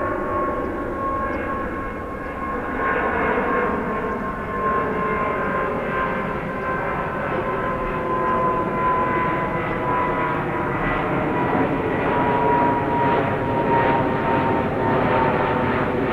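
Boeing 777-200 airliner's twin turbofan engines at climb power passing overhead: a steady jet roar with a high fan whine that sinks slowly in pitch, growing gradually louder.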